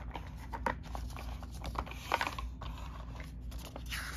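Light rustling and a few soft clicks as a paper insert sheet is lifted out of an open cardboard game box and handled.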